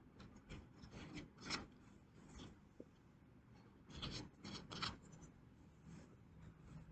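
Kinetic sand being worked by hand: faint, irregular scraping and rubbing, with a few louder scrapes about a second and a half in and again around four to five seconds in.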